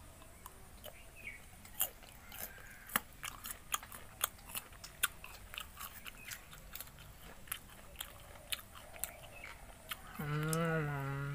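A person chewing a green hog plum (Spondias pinnata) slice: irregular sharp crunches and mouth clicks. Near the end comes a drawn-out closed-mouth 'mmm' hum of enjoyment.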